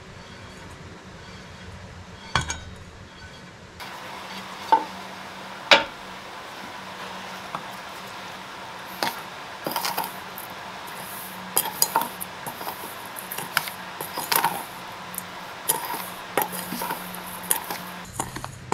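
A metal spoon stirring a dry curing mix of salt, sugar and ground spices in a stainless steel bowl. Irregular clinks and scrapes of spoon against bowl start about four seconds in.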